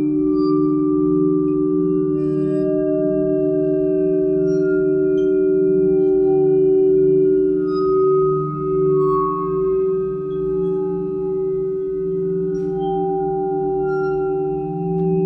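Contemporary chamber music: a sustained, slowly pulsing drone of low ringing tones, with higher single pitches entering and fading above it and a few faint ticks.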